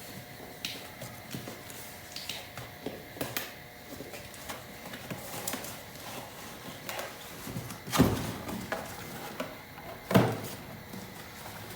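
A heavy metal replacement wheel hub assembly being picked up and handled: scattered light knocks and clicks, with two louder thumps about eight and ten seconds in.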